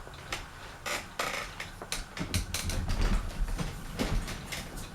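Harbor Breeze Aristocrat ceiling fan being started on low speed: a string of irregular clicks and light rattles, with a low motor hum building up about halfway through.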